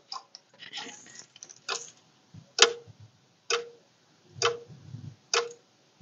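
Relay inside a GE/Jasco Z-Wave wall switch clicking on and off by itself, a sharp click about once a second starting about a second and a half in. This is the failure the owner puts down to a power surge after an outage, with the connection being made only intermittently.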